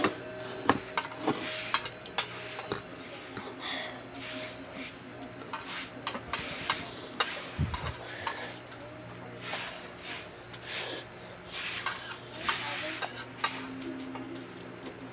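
Cutlery clinking and scraping against a plate while eating: scattered light clicks and short scrapes at an uneven pace.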